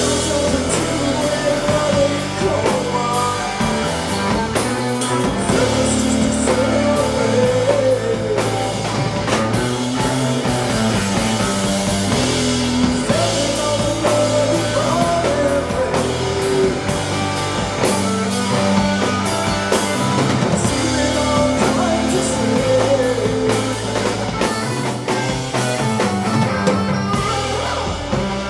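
Rock band playing live: drum kit, guitars and bass, with a voice singing over them.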